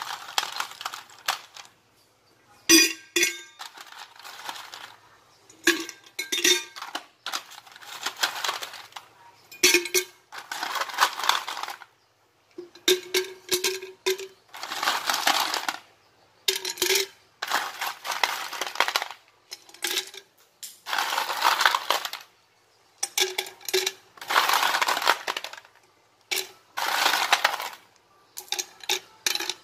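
Ice cubes dropped into an empty Sea to Summit 360° stainless steel vacuum-insulated jar, clattering and clinking against the metal walls and ringing briefly. There are a dozen or more irregular bursts, some a single clink and some a rattle lasting a second or two, as the jar is filled with ice for a cold-retention test.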